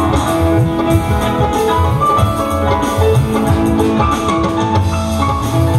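Band music through a large stage sound system: a regular drum beat under held keyboard and guitar notes.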